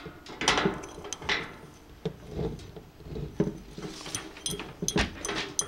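A rolling-cart pole being screwed onto a threaded bolt at the corner of a metal mesh tray: irregular clicks, light knocks and scraping as the parts are handled and turned.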